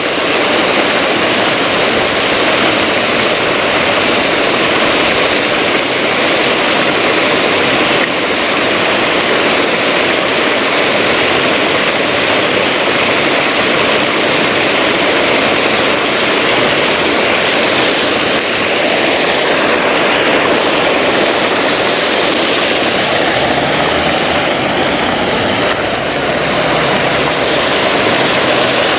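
Paddlewheel aerator running in the pond, its paddles churning the water in a steady rushing splash.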